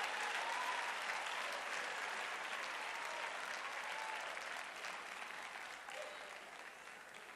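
Church congregation applauding as a praise offering, with scattered voices calling out over the clapping. The applause slowly dies away.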